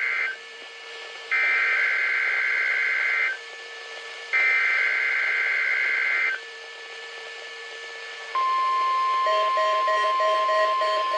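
NOAA Weather Radio Emergency Alert System alert heard over a radio: the tail of one burst of the SAME header's screechy digital data, then two more bursts of about two seconds each with a second's gap between, the coded header that sets off alert receivers. About eight seconds in the steady weather radio warning alarm tone begins, and about a second later a lower beeping, about three beeps a second, joins it.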